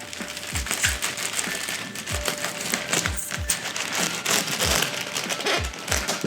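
Pocket knife cutting open a shipping package, with crinkling and rustling of the plastic and cardboard packaging, over background music with a steady low beat about twice a second.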